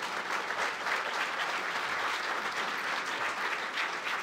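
Large audience applauding, steady sustained clapping from many hands.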